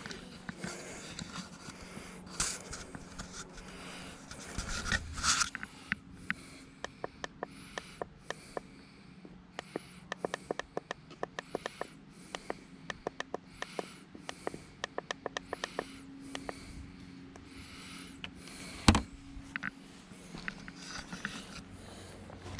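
Robotic lawn mower running with a steady low hum, with a long run of quick light clicks, about four a second, through the middle and one sharp knock near the end.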